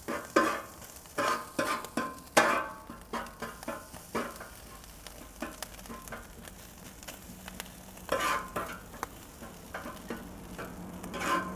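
Spatula scraping and tossing fried rice across a hot flat-top griddle, the rice sizzling steadily underneath. Bursts of sharp scrapes and clacks come in the first few seconds, again about eight seconds in and near the end.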